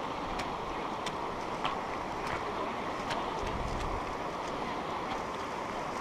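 Shallow mountain river rushing steadily over a pebble bed, with a few sharp clicks on top.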